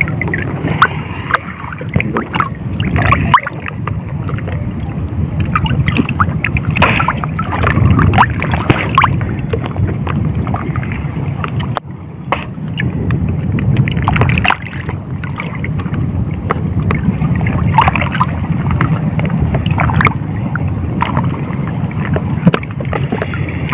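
Sea water sloshing and splashing around a wader standing in it, with many small sharp splashes, over a steady low rumble of wind on the microphone.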